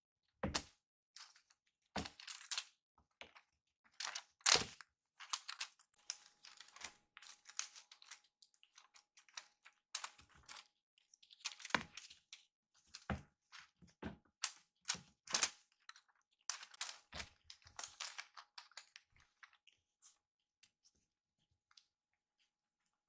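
Kittens at play: quick, irregular light taps, clicks and scuffs of small paws and a teaser toy on a floor mat, stopping a few seconds before the end.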